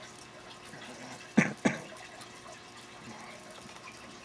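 Costume jewelry being handled from a tangled heap: beads and chains rattling softly, with two sharp clacks a third of a second apart about a second and a half in.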